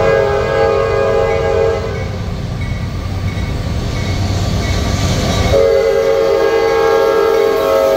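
Norfolk Southern diesel locomotive blowing its multi-chime air horn as it approaches a grade crossing: the horn breaks off about two seconds in, leaving the low rumble of the approaching train, and blows again about five and a half seconds in.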